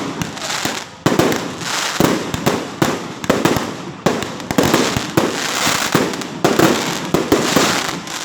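Fireworks going off in a rapid series: a sharp bang about once a second, each trailed by a dense crackle that fades before the next.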